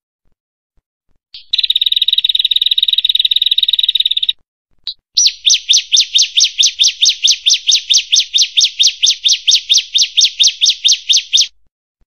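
Prenjak (prinia) song: a dense, rapid trill for about three seconds, a brief single note, then a long run of sharp repeated chirps at about six a second for some six seconds.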